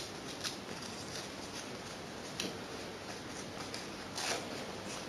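Low steady background hiss with a few faint, light clicks spread through it.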